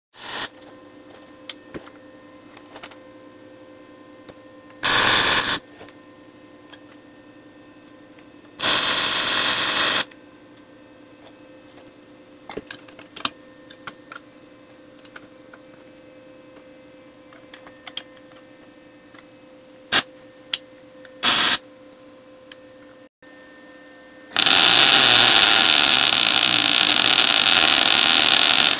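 MIG welding steel in bursts: a few short tacks of under a second to about a second and a half, then a longer, louder bead of about four seconds near the end. A steady low hum and a few small clicks carry on between the welds.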